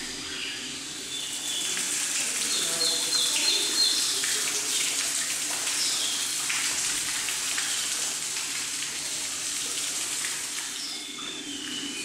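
Small birds chirping and calling with short high notes, a quick run of repeated notes about three seconds in, over a steady rush of running water.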